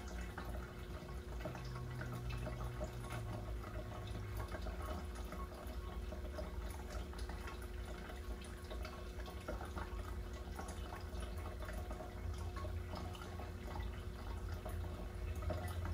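Faint dripping and trickling water over a low, steady hum.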